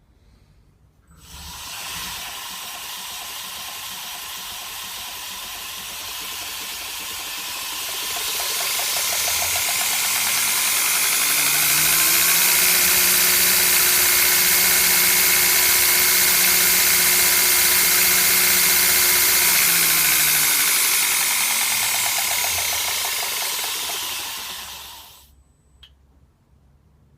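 2x72 belt knife grinder starting up and running with a steady whine and belt hiss. It speeds up to a higher, louder pitch, holds there for several seconds, then slows down and stops.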